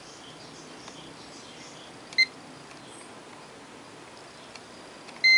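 Multimeter continuity buzzer beeping as the probes touch points on the circuit board: one short beep about two seconds in and a longer one starting just before the end, each beep signalling a closed connection between the probed points.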